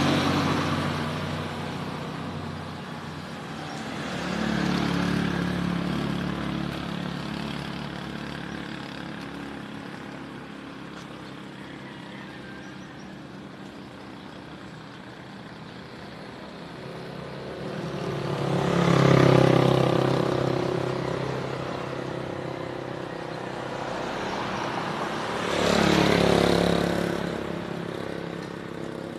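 Road vehicles passing by one after another, each rising and fading over a few seconds: one at the start, a softer one about five seconds in, and two louder ones in the last third.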